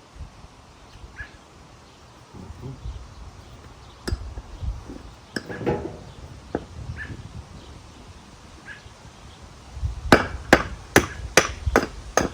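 Metal parts knocking as a wheel, spacers and a lug-wrench axle are worked onto a wheelbarrow: a few scattered clicks and clunks, then a quick run of about seven sharp knocks, roughly three a second, near the end.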